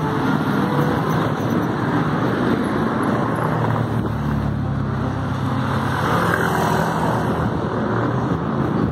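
Steady city street traffic: motorcycle and car engines and tyre noise.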